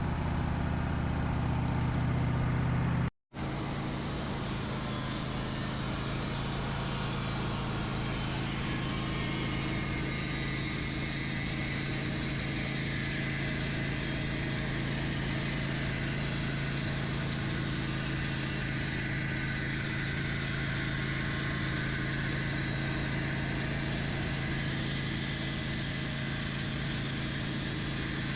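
Sawmill engine running steadily, with a brief dropout about three seconds in.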